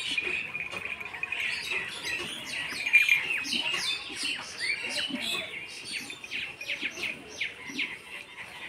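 Many small birds chirping and twittering together in a busy, continuous chorus of short high calls.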